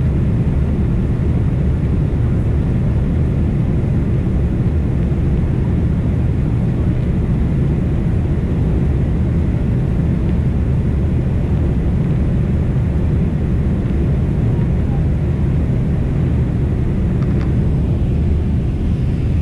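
Steady low rumble of an airliner's jet engines and rushing air, heard inside the passenger cabin as the plane climbs out after takeoff.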